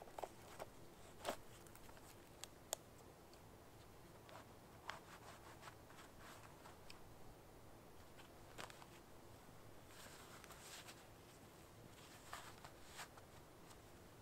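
Faint rustling and small clicks of a person handling a tarp shelter and moving about on the forest floor, with a few sharper ticks in the first three seconds and a short run of rustling later on.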